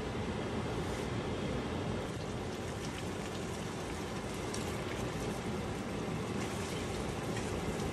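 Chicken curry simmering and sizzling in a stainless-steel pan, with faint scattered crackles over a steady low rumbling noise.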